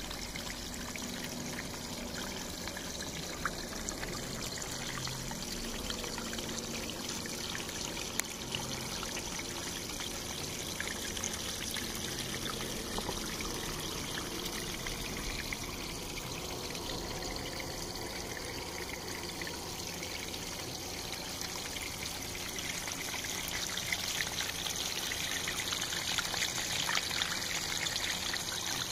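Water from a small rock waterfall pouring and trickling into a garden fish pond, a steady splashing that grows louder in the last few seconds.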